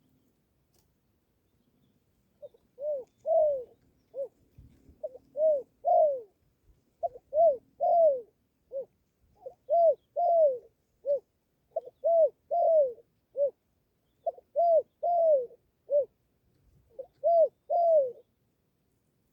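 A dove cooing: a phrase of three or four soft arched notes, repeated about every two seconds, seven times over.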